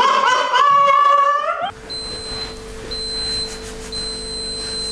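A man's voice sings a drawn-out, wavering note for about a second and a half, then cuts off abruptly. After that there is a steady faint hum with a high thin tone that sounds three times.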